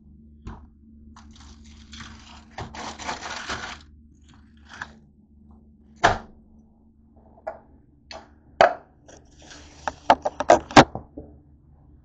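Things being handled and set down on a kitchen counter: scattered knocks and clicks, a rustle of plastic packaging lasting about a second about three seconds in, and a quick run of taps near the end, over a steady low hum.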